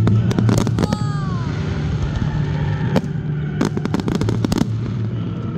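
Aerial fireworks display: a rapid run of sharp bangs and crackles from bursting shells, with a whistling shell falling in pitch about a second in.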